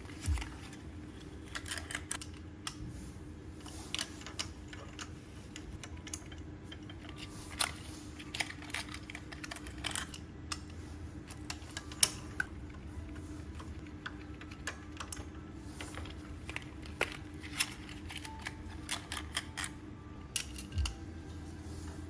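Scattered light clicks and taps at irregular intervals over a faint steady hum.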